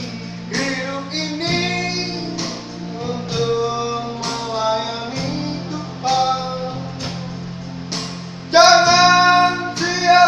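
A small mixed group of men and a woman singing a song together, with steady held low notes of instrumental accompaniment beneath. The voices swell louder about eight and a half seconds in.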